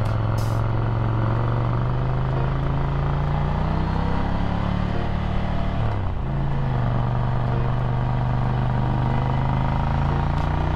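Ducati Scrambler's air-cooled 803 cc L-twin, with a Termignoni exhaust, running under load on the road. The revs climb slowly, dip sharply with a short break about six seconds in, then climb again.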